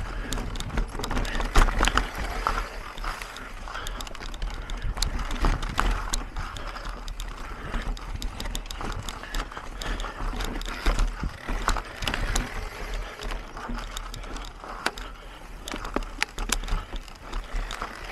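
Mountain bike ridden over rough trail: irregular clicks and rattles from the bike, over a steady low rumble.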